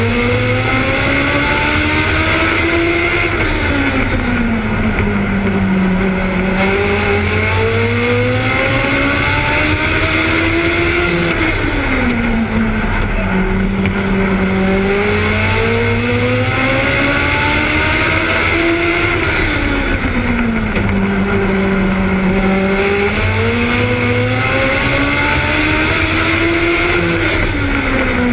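A Legends race car's Yamaha 1200cc four-cylinder motorcycle engine, heard close up from on board. It climbs in pitch through the gears along each straight, then drops quickly as the driver backs off for the corner, four times over.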